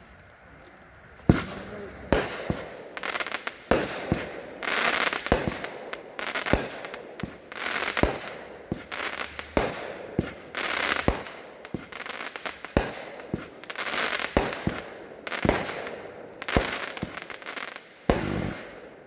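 A 30-shot firework cake (Skate Park Legends) firing its shots one after another, starting about a second in: sharp launch reports, many followed by the crackling bang of the shell breaking overhead, one or two a second.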